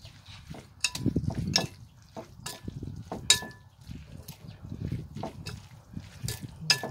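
A spoon and hands tossing raw beef laab in a ceramic bowl: wet squelching of the chopped meat and herbs, with irregular clinks of the spoon against the bowl.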